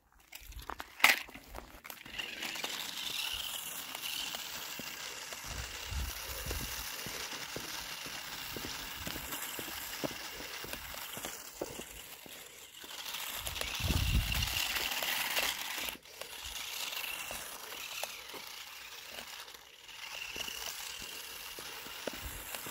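Small electric motor of an LH-C023AS RC off-road car whining faintly as it drives, with its tyres crackling over rough ground; the whine swells and fades as it goes, and two short low rumbles come about six and fourteen seconds in.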